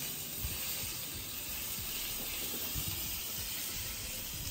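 Hot dog sausages sizzling in a metal tray over a portable gas stove's flame: a steady hiss.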